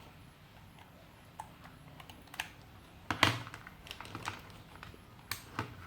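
Scattered light clicks and taps of small hard objects being handled, a few irregular ones, the loudest about three seconds in, as a temperature meter is set up on a flashlight.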